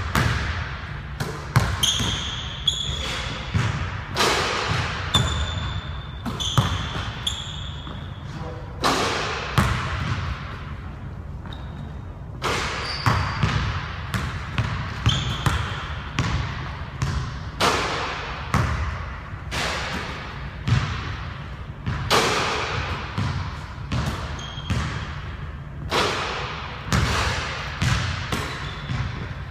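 Basketball bouncing again and again on a hardwood gym floor, each bounce echoing in the large hall, with short high sneaker squeaks in between.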